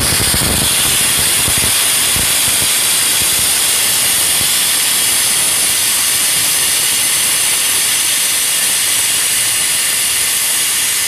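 Prestige pressure cooker whistling: steam blowing out under the weight valve as a loud, steady hiss, with a low sputter in the first couple of seconds. The whistle is the sign that the cooker has reached full pressure, and is counted to time the cooking.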